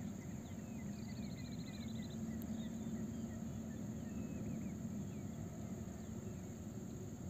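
Steady low hum of a gondola cabin running along the ropeway cable, with scattered high bird chirps and a short fast trill about a second in.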